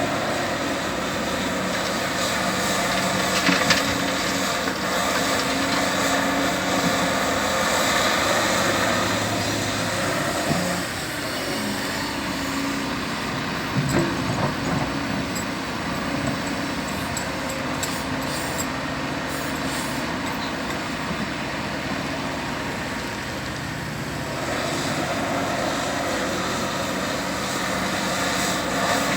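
Large diesel excavator engine working under load, its pitch and level rising and falling as the hydraulics are worked, with a couple of short knocks from the machine.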